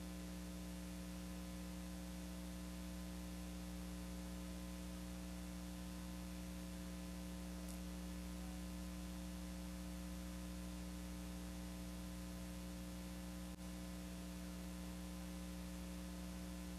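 Steady electrical mains hum with an even hiss, the background noise of an old camcorder tape recording, dipping briefly about thirteen and a half seconds in.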